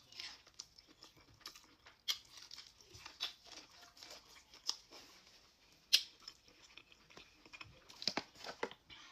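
Close-miked eating of seafood: chewing and lip smacking, with a few sharp cracks and tearing of crab shells being pulled apart for the meat.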